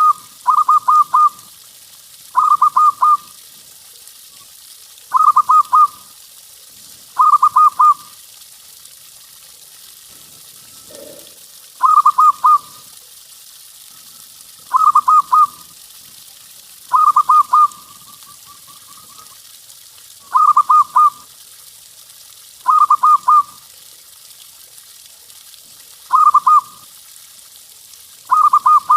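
Zebra dove (perkutut) cooing: short, rapid, rippling runs of soft notes, repeated about every two to three seconds, over a steady background hiss.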